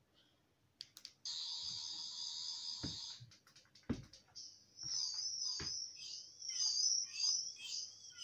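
Sonic screwdriver sound: after a couple of clicks, a steady high electronic buzz for about two seconds, then a few clicks and thumps, then a high electronic warble that swoops up and down over and over, as if scanning.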